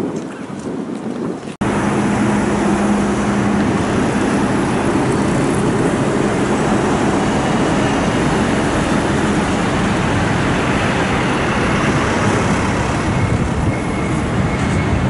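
Rain falling for the first second and a half, then an abrupt cut to steady road traffic noise with a low engine hum.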